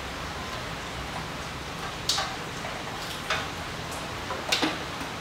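Three or four light, sharp clicks about a second apart, from the air-shock hose being handled and fed under a motorcycle's lifted gas tank, over a steady low hum.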